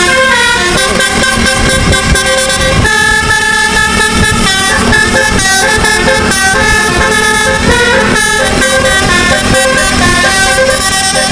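Bus 'telolet' musical air horn playing a fast tune: several horn notes sound together and step up and down from note to note with no break.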